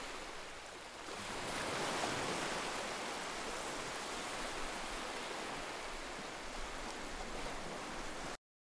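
Steady, even rushing noise with no tone or rhythm, like surf or hiss, laid under a still slide. It dips slightly about a second in and cuts off abruptly near the end.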